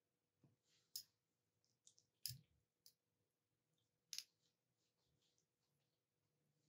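Faint clicks and scrapes of a spoon and fork against a metal serving plate as fish and rice are cut apart, a few separate taps with the loudest about two and four seconds in.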